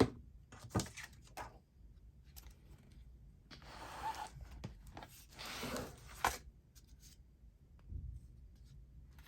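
Paper and card being handled at a craft table: a few light clicks and taps, then two rustling passes of about a second each, a little after the middle.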